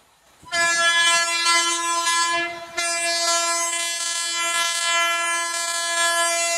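Horn of an Indian Railways WAP-7 electric locomotive: a loud, steady blast starts about half a second in, breaks off briefly a little after two seconds, then sounds again as a second long blast.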